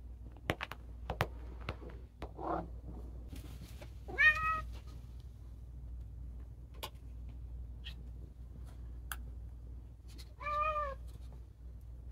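Domestic cat meowing twice while begging for food, about four seconds in and again near the end, each a short call that rises and falls in pitch, with a weaker short call before the first. A few sharp clicks in the first two seconds.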